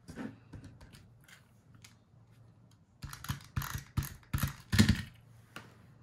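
A handheld adhesive tape runner dragged in several quick strokes over the back of a paper die-cut, each stroke a short crackling zip and the last the loudest, after a moment of light paper handling.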